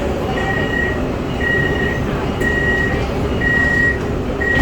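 Electronic warning beeps sounding about once a second, each a short steady tone, over the steady rumble of an MRT Putrajaya Line train, with a sharp knock at the end.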